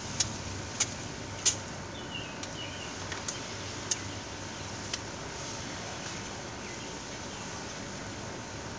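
Garden hose spray head on its flat setting washing down house siding: a steady hiss, with a series of sharp clicks in the first five seconds.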